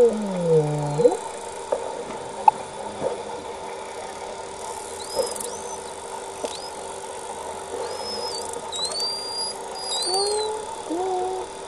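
Underwater, a person hums along with false killer whales. A low falling hum comes in the first second and short low hums near the end. Brief high rising-and-falling whistles from the false killer whales come in the middle and later part, with a few scattered clicks and a steady low tone underneath.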